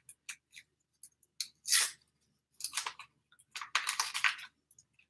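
Packaging of instant yeast rustling and crinkling as it is torn open, in a few short crackly bursts, the longest about four seconds in.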